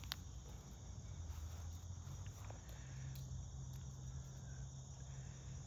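Crickets chirring steadily over a low, steady hum, with a single click right at the start.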